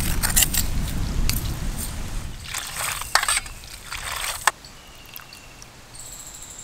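A low rumble with a few short scrapes, then, from about two and a half seconds in, water sloshing and dribbling for about two seconds as hands squeeze soaked flattened rice (chira) in a steel bowl of water.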